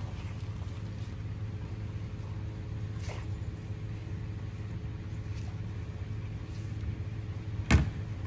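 Steady low outdoor hum with a faint click about three seconds in and one sharp knock near the end, the loudest sound.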